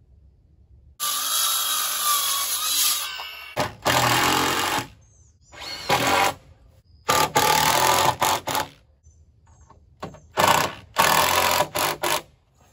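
Cordless drill driving screws into wooden blocking between deck joists: a long run, then several shorter runs of a second or two, each starting and stopping abruptly.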